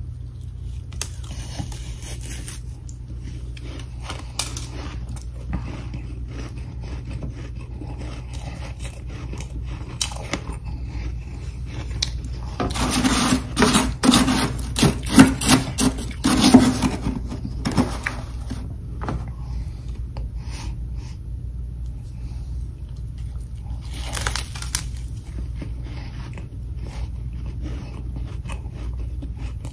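Metal spoon scraping and scooping powdery freezer frost off the freezer floor, a dense run of gritty scrapes and crunches in the middle, with a shorter burst later. Scattered soft crunches of frost being chewed around it, over a low steady hum.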